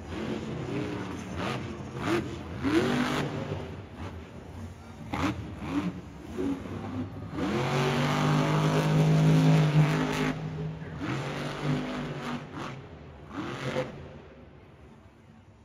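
Monster truck's supercharged V8 revving hard in short rising-and-falling bursts, then held at a long high rev about eight seconds in, the loudest part; the engine fades near the end.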